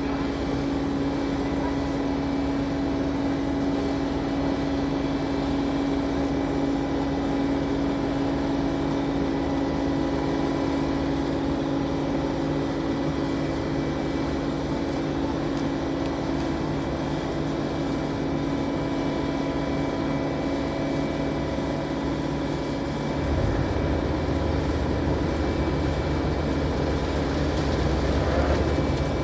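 Large lattice-boom crane's diesel engine running steadily with a constant hum. Late on, a deeper tone joins and the engine grows slightly louder.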